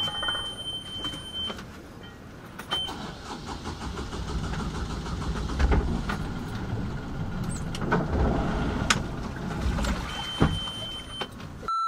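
Sailing yacht's inboard engine running while motoring slowly, under a rumbling, gusty low noise with scattered clicks. A thin steady high tone sounds at the start and again near the end, and a loud beep comes at the very end.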